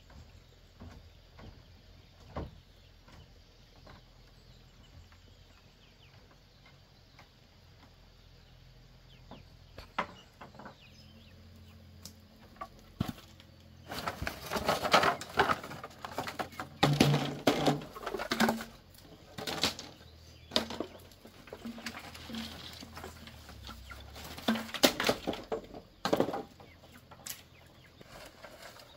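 Dry bamboo pieces and sticks knocking and clattering together as they are picked up and gathered by hand. A few single knocks at first, then dense bursts of clatter through the middle, tailing off near the end.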